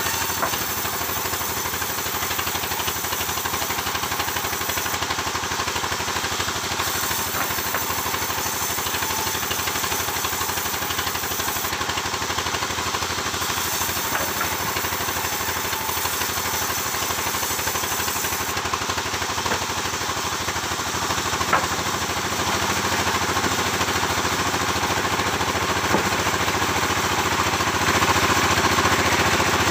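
Sawmill machinery engine running steadily, with a couple of sharp knocks and a rise in loudness near the end.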